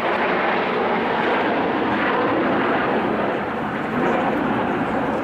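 Formation of Aermacchi MB-339 jet trainers flying past, their turbojet engines making a steady, even rush of jet noise.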